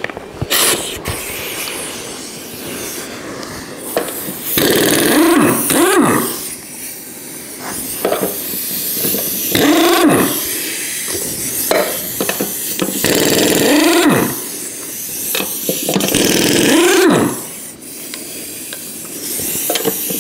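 Pneumatic impact wrench run in about five short bursts on a car wheel's lug nuts, loosening them to take the wheel off; in each burst the motor's pitch rises and falls back.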